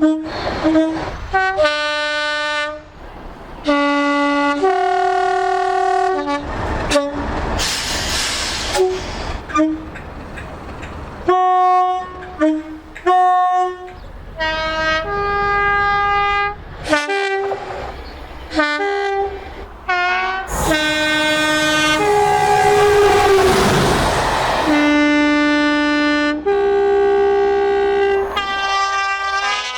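British train horns sounding in a run of short and long blasts, many switching between a high and a low note, pitched differently from one horn to the next. The rushing noise of trains passing at speed comes in briefly about eight seconds in and again for several seconds past the twenty-second mark.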